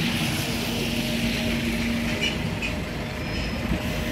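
Red London double-decker bus passing close by and pulling away, its steady engine hum dying away about two seconds in as it moves off.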